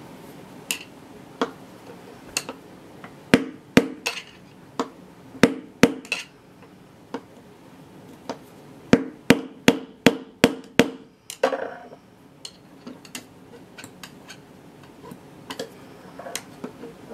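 Hammer striking a screwdriver held against the pressed-in drum bearing in a washing machine tub's hub: sharp metal-on-metal blows, spaced out at first, then in quick runs, lighter taps near the end. The bearing is not shifting; it is very securely pressed in.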